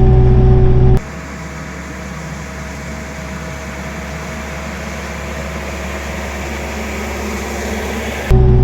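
Kioti RX7320 tractor's diesel engine running steadily. About a second in, the sound cuts abruptly to a quieter, hissier steady hum, and it cuts back to the louder engine near the end.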